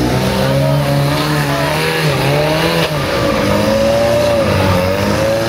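Off-road trial buggy's engine revving under load as it climbs a steep rocky slope, its pitch rising and falling as the throttle is worked.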